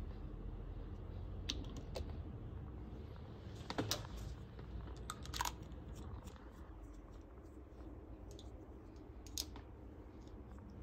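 A few faint, scattered small clicks and taps as a glass ink dropper bottle and a Lamy AL-Star fountain pen are handled, the pen's aluminium barrel being fitted back onto its section; the clearest clicks come about four seconds in.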